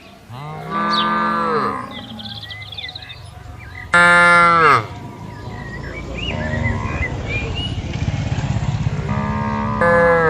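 Cattle mooing: four calls, the loudest about four seconds in, a weaker one in the middle and another starting near the end, their pitch bending down as each call ends. Faint bird chirps between the calls.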